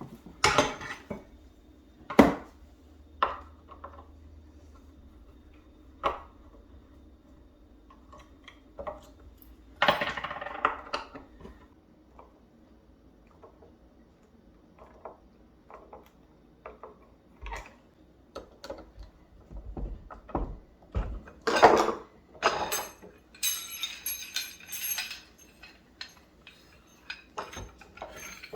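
Ceramic mugs clinking and knocking as they are handled and hung one by one on a wall rack, with scattered knocks and a quick run of ringing clinks near the end.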